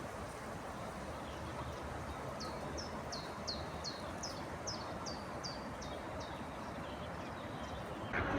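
A songbird sings a run of about a dozen short, high notes, each falling sharply, at roughly three a second, over a steady outdoor background hiss.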